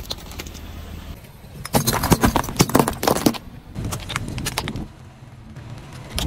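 Hard plastic cracking and crunching under a slowly rolling car tyre, a plastic toy and then a row of filled plastic syringes: a dense run of sharp snaps from about two to three seconds in, a shorter run near four seconds, and one more crack at the end. A low steady hum runs beneath.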